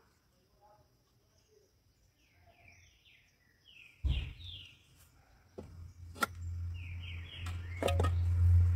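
A small bird singing runs of short, quickly repeated descending chirps, once about two seconds in and again about seven seconds in. From about four seconds in, a low rumble on the microphone rises and grows louder, with a few sharp clicks.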